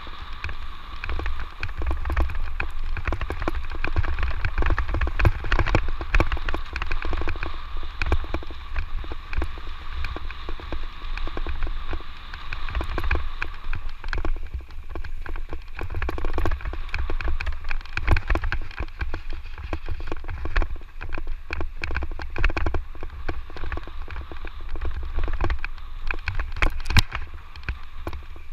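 Electric mountain bike riding a dirt trail: a dense clatter of the bike and camera jolting over rough, sandy ground, over a low rumble of wind on the microphone. A steady high whine sounds through the first half and fades after about the middle.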